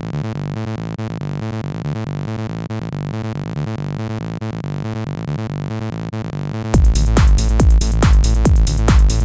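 Electronic psytrance backing track: a repeating synth pattern pulses along, then a heavy kick drum and deep bass come in about seven seconds in and the music gets much louder.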